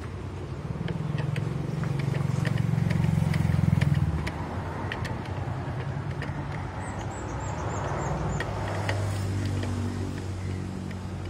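A motor vehicle's engine passing nearby, swelling to its loudest about four seconds in and fading, with a second one rising around eight seconds. Scattered light metal clicks come from a hand tool working on the open motorcycle clutch.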